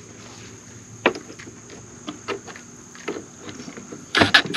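Scattered light clicks and taps of a small adjustable wrench and bolts being worked on the coop's panels as the nuts are fitted. A short, loud burst of noise comes just before the end.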